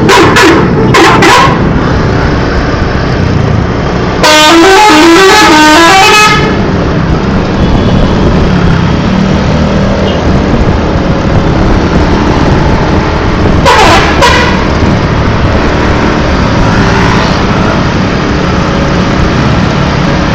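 A bus's 'telolet' multi-tone musical horn plays a quick up-and-down run of notes for about two seconds, starting about four seconds in. There are a few short horn toots near the start and another burst about fourteen seconds in, over steady road traffic noise.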